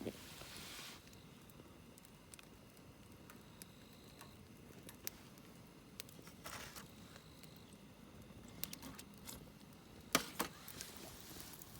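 Wood fire crackling: scattered sharp pops and ticks over a low hiss, with a louder pair of pops about ten seconds in.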